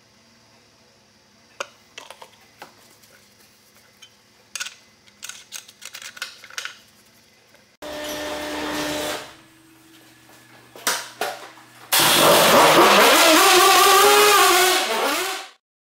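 Light clicks and handling taps while oil is poured into a metal flask. Then, about twelve seconds in, a two-stroke dirt bike engine starts and is revved, its pitch rising and falling, before cutting off abruptly near the end.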